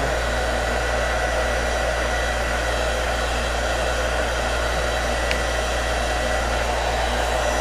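Handheld hair dryer running steadily, a constant rush of air with a faint high whine, used to warm vinyl wrap so it stretches over the fender.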